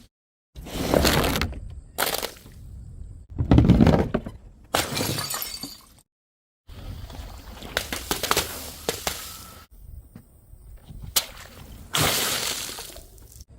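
Glass bottles shattering one after another: about half a dozen separate smashing crashes, each trailing off briefly. The loudest comes about three and a half seconds in.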